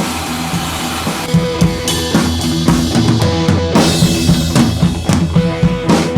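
Music with a drum kit and bass, with a steady drum beat coming in about a second in.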